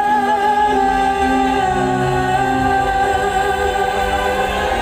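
Music with choir-like singing on long held notes; a low bass part comes in about a second and a half in.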